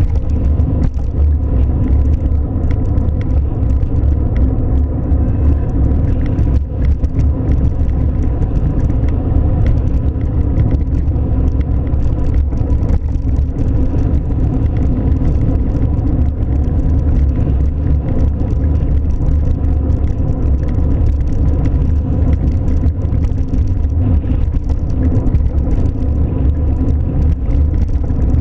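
Steady low rumble of a car running, unbroken and even in level, with a faint steady hum above it and no horn.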